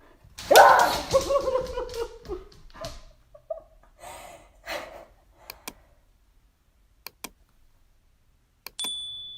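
A dog gives a long pitched call that falls in pitch, starting about half a second in. Scattered clicks and knocks follow, and a brief high beep sounds near the end.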